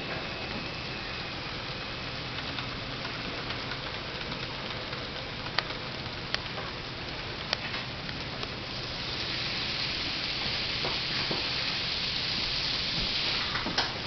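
N-scale model freight trains running on the layout: a steady rolling hiss from wheels and motors, with a few sharp clicks, growing louder about nine seconds in.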